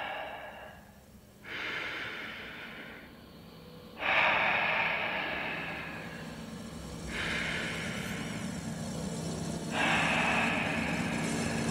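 Heavy human breaths, close and amplified, about one every two to three seconds, each starting suddenly and fading away. A low steady hum comes in about halfway.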